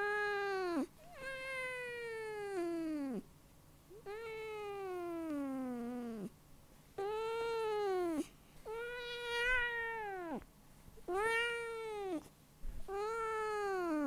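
Domestic cat meowing softly, about seven drawn-out meows one after another with short pauses between them. Each lasts a second or two and slides down in pitch at its end, and the longer ones fall steadily throughout.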